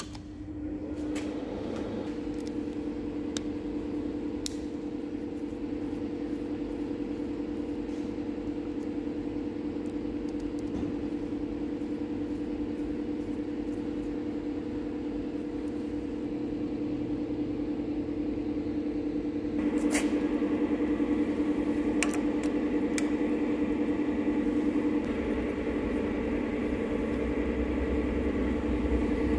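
Sir Meccanica WS2 portable line boring machine's drive running with a steady hum. About twenty seconds in it gets louder and fuller, with a few sharp clicks.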